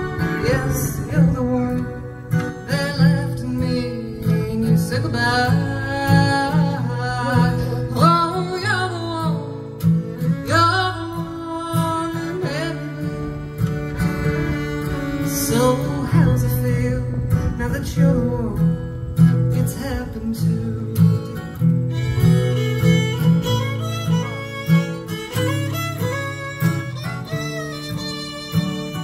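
A woman sings a country song over a strummed acoustic guitar, with a fiddle playing backing lines.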